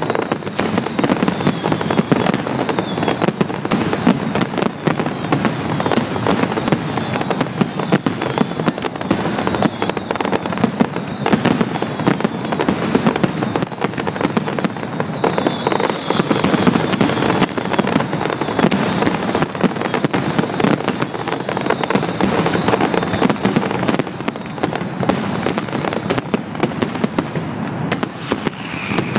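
Fireworks display in a dense, unbroken barrage: many bangs and crackles a second from aerial shells bursting together. A faint whistle rises out of the barrage about halfway through.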